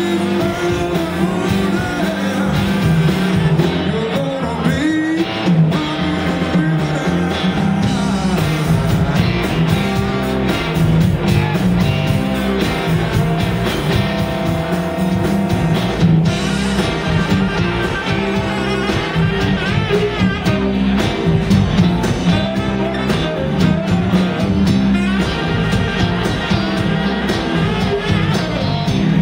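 Blues-rock band playing live and loud: electric guitar, saxophone, keyboard and drum kit.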